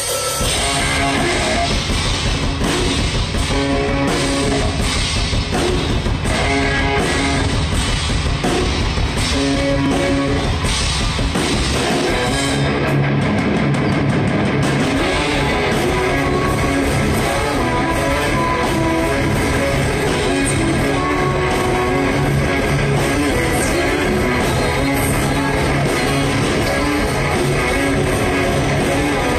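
A rock band playing live, with electric guitars and a drum kit, loud and steady. About halfway through, the cymbals and deepest bass briefly drop out before the full band comes back in.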